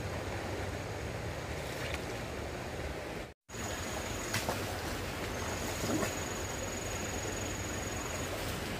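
Steady rushing outdoor ambient noise with a brief dropout about three and a half seconds in. A faint, thin, high steady whine runs through parts of it.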